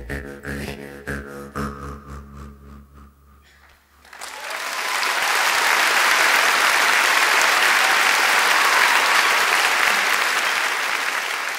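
The last notes of a live song ring out over a low held tone and die away. About four seconds in, an audience breaks into applause that swells quickly and holds.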